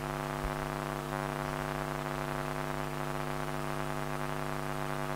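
Steady electrical hum and buzz from an electric guitar rig: a stack of even, unchanging tones with hiss above.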